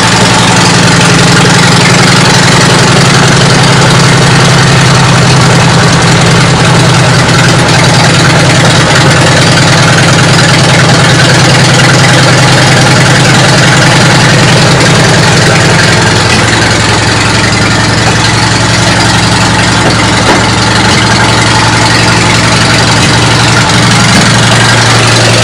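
Car engine idling steadily and loudly, with an even low pulsing hum.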